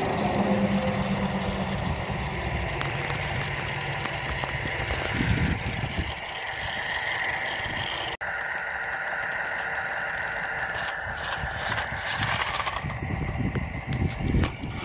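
Radio-controlled concrete mixer truck driving over rough ground: a steady whine from its drive with irregular crunching and rattling from the wheels on the terrain. The sound cuts out for an instant about eight seconds in and carries on.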